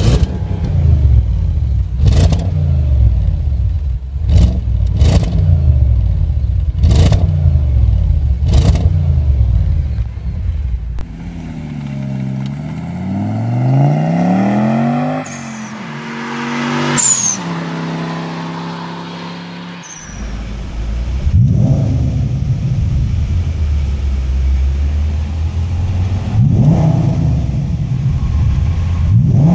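Three Audi S6 exhausts in turn. First a 2014 S6 C7's twin-turbo V8 on its stock exhaust, revved in short sharp blips about every two seconds; then a 2.2-litre turbocharged five-cylinder S6 accelerating along a road, its engine note climbing; then a 5.2 V10 S6 with a Milltek non-resonated exhaust idling in neutral and revved twice.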